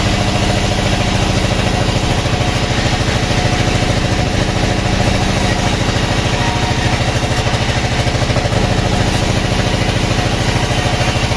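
Sawmill engine running steadily with an even, fast pulsing beat.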